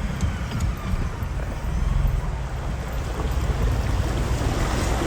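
Four-wheel-drive truck fording a river: a low engine rumble with water sloshing and splashing around the wheels, the splashing growing louder near the end.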